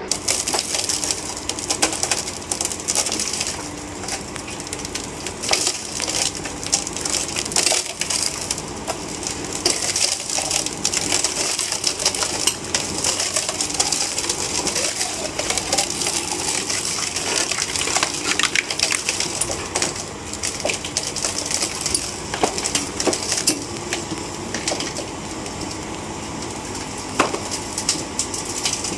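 Steel tracks of a Caterpillar 374 excavator crunching and creaking over wooden timbers laid on the road: a dense, continuous crackling with scattered sharp knocks.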